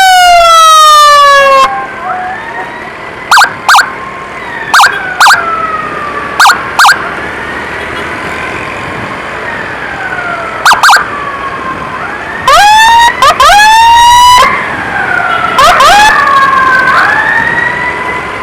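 Two emergency vehicle sirens. A close, very loud one gives a falling wail at the start, then short double blips every second or so, and fast rising yelp sweeps around the middle and again near the end. A second siren wails steadily up and down further off the whole time.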